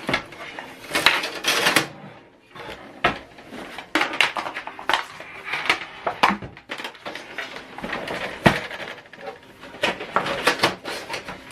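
Irregular clicks, taps and rustles of a USB cable and its plastic plug being handled.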